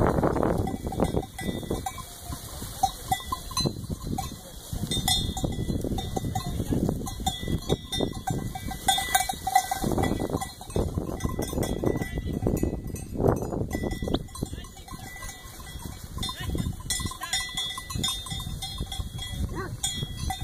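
Large flock of sheep passing close by: bells clinking, occasional bleats and rustling through the grass, over a low rumble of wind on the microphone.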